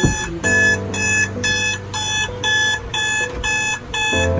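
Phone alarm beeping in a steady repeating pattern, about two beeps a second.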